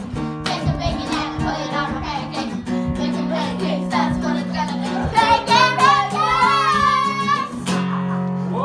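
An upbeat song with strummed guitar and a steady beat, with children's voices singing along. A high, wavering sung voice stands out about five seconds in.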